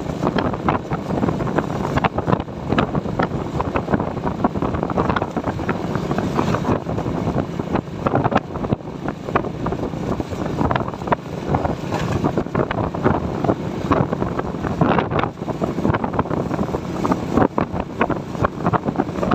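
Wind buffeting the microphone of a moving motorcycle in irregular gusts, over the steady running of the bike's engine and road noise.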